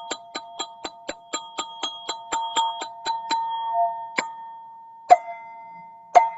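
Black ZenTube played with quick, even strikes, about four a second, each ringing with a few clear bell-like tones. A little past the halfway point it slows to three single strikes about a second apart, each left to ring.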